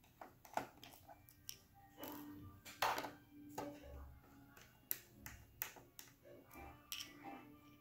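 Irregular light clicks and taps of a small Phillips screwdriver working the tiny screws out of a laptop's metal bottom case.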